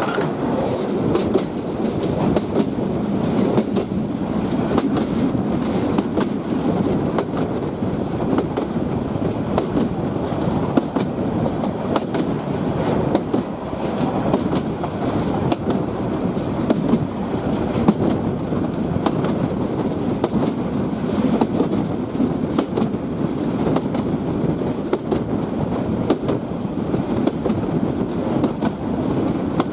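Bangladesh Railway passenger train running along the track: a steady rumble of wheels on rail with frequent short clicks and knocks from the rail joints.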